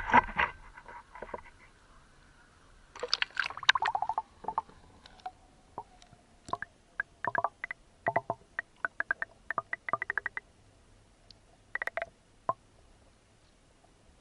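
Water splashing around a camera as it goes under, then scattered underwater clicks and crackles, in a dense cluster a few seconds in and then irregular ticks until shortly before the end.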